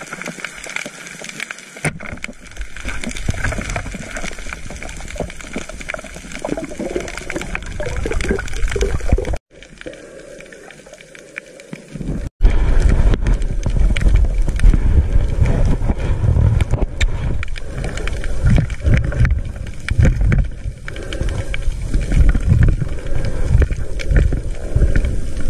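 Underwater sound picked up by a diver's camera: muffled water rushing and gurgling. It drops away about nine seconds in and returns louder and rumbling about twelve seconds in.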